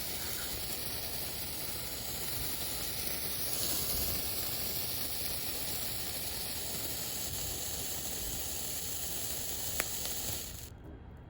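Morning glory sparkler fireworks burning with a steady hiss of spraying sparks, cutting off about ten and a half seconds in as they burn out.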